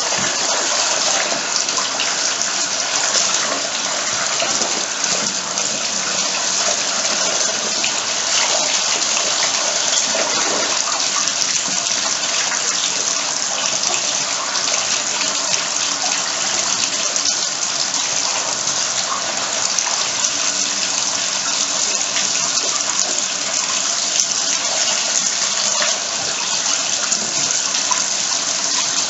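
Bathtub tap running steadily into the tub, a continuous rush of water.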